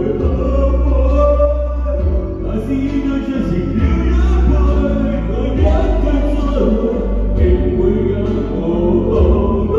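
Amplified live band music with a singer, played loud with a heavy, steady bass line.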